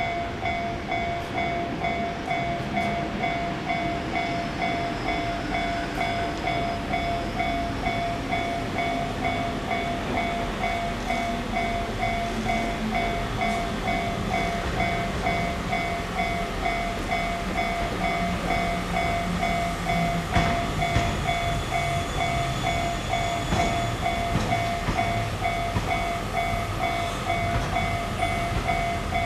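Japanese level-crossing warning bell ringing steadily, about two strokes a second, while a train runs past with a low drone that falls in pitch through the middle.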